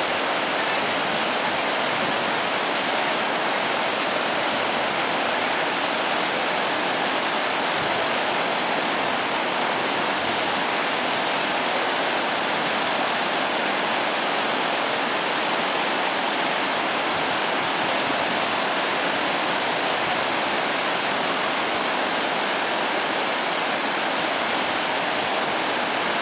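Floodwater rushing steadily through a breach in a washed-out road crossing, white water pouring over the broken edge of the roadway.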